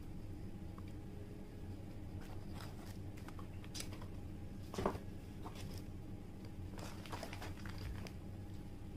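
Quiet eating sounds: chewing, and paper and cardboard fast-food packaging being handled and crinkled, with a single knock about five seconds in, over a steady low hum.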